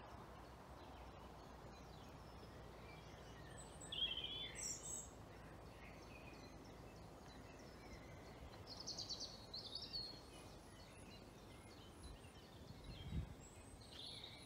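Wild birds singing: scattered short chirps and trills, a few seconds apart, over faint outdoor background noise, with a dull low bump near the end.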